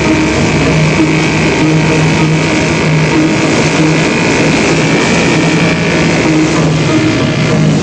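Outboard motor of an inflatable dinghy running steadily at speed, mixed with background film music.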